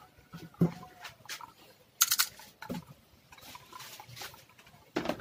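Scattered light clicks and knocks of hands handling an opened laptop and its parts, with a quick cluster of sharp clicks about two seconds in and another click near the end.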